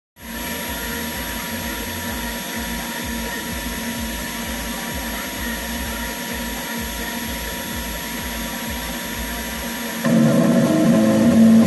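Homemade CNC machine's motors running with a steady hum and whine; about ten seconds in a louder, pitched motor sound starts up and carries on.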